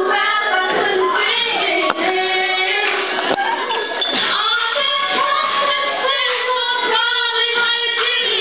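A group of girls singing together into microphones. There are two brief clicks about two and three and a half seconds in.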